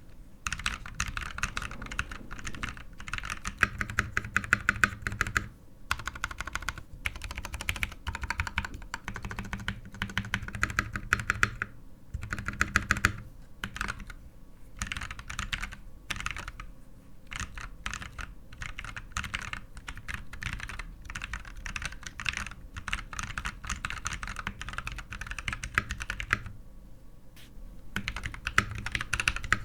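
Fast typing on a KT87 tenkeyless mechanical keyboard with lubed and filmed Durock T1 tactile switches and DSA-profile keycaps: a dense run of key clacks, broken by short pauses every few seconds and a longer pause near the end.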